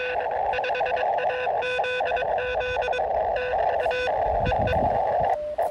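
Morse code from the speaker of a KX2 QRP transceiver: a single steady tone keyed on and off in dots and dashes over the receiver's hiss, which is narrowed by the CW filter.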